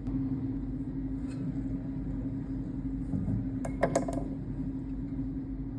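Old Colchester lathe running with a steady hum. A few sharp metallic clinks with brief ringing come close together about four seconds in.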